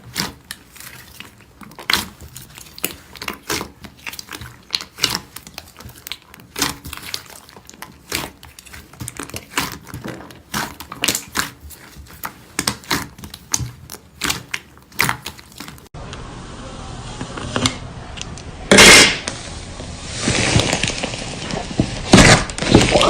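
Slime being squeezed and worked by hand, giving rapid irregular crackling clicks and pops. About two-thirds of the way through, the sound cuts to a different recording with a steady hiss and a few louder, wetter squelches.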